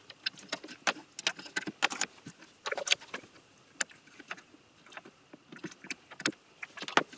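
Irregular series of small sharp clicks and scrapes as a screwdriver and fingers pry the cylindrical backup battery out of its plastic holder on a Macintosh Classic II logic board.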